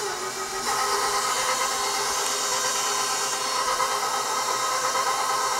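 Electric stand mixer motor running steadily: a whine of several tones over a hiss, a little louder from just under a second in, as it mixes the wet ingredients for a yeast dough while flour is added.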